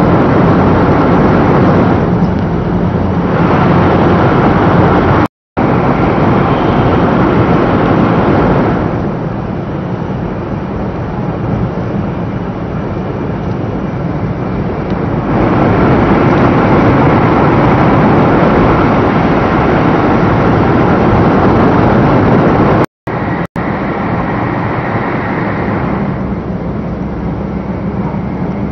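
Cabin noise of a 500 series Shinkansen running at high speed: a loud, steady rush and rumble of wheels and air. It is louder in the opening seconds, while the windows are dark in a tunnel, and in a later stretch. Two brief silent gaps break it, about 5 s and 23 s in.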